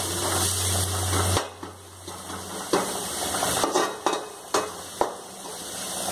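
Onion, chilli and ginger-garlic masala sizzling in oil in a metal kadai while a metal ladle stirs and scrapes it, with several sharp clinks of the ladle against the pan in the second half.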